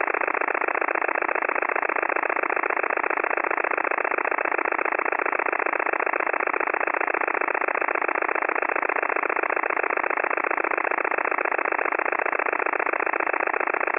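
Pulsed radio signal on 100 kHz, received on a WebSDR and heard through the receiver's narrow audio passband as a steady, rapid chugging buzz like an idling diesel engine. 100 kHz is the Loran-C/Chayka navigation frequency, whose pulse trains give this sound.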